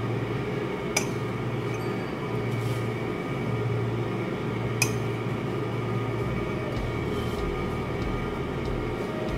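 Steady low hum with two sharp clinks, one about a second in and one near five seconds, as a spoon knocks against a glass mug while flattened rice flakes are added.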